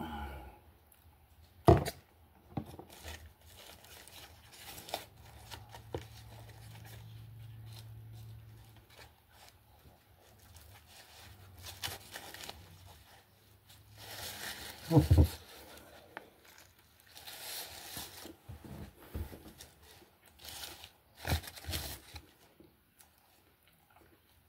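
Aluminium foil taco wrapper crinkling and rustling as it is handled, with scattered small clicks. Two loud thumps stand out, about two seconds in and about fifteen seconds in.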